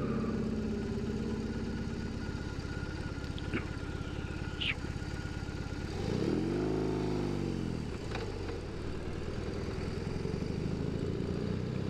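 BMW R18's 1.8-litre boxer twin idling steadily at a stop, then revving as the bike pulls away about six seconds in, rising and then falling in pitch before settling into a steady run.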